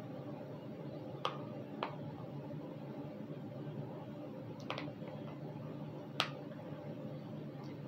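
Tags being taken off a plush toy: four short sharp clicks, spaced a second or more apart, the last the loudest, over a steady low hum.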